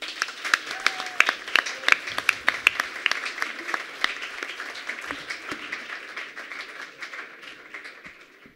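Audience applauding, many hands clapping at once. The clapping starts loud and dies away gradually toward the end.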